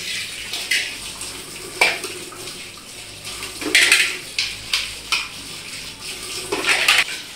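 Kitchen tap running into a sink while dishes are washed by hand, with steel plates and bowls clattering against each other a few times.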